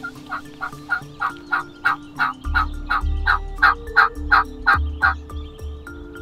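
Turkey yelping: a long, evenly paced run of short yelps, about three a second, growing louder toward the middle and stopping about five seconds in. Soft background music with a low beat underneath.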